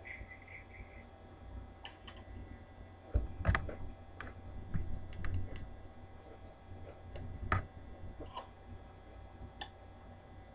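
Metal spoon clinking and scraping against a cereal bowl in scattered sharp clicks, with the loudest knocks about three and a half and seven and a half seconds in.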